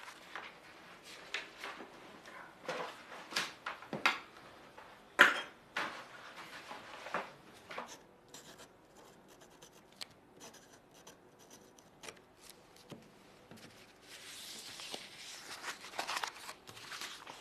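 Pen scratching across paper in short strokes as a contract is signed, with a few sharper clicks and taps. Near the end, a rustle of the paper being slid or handled.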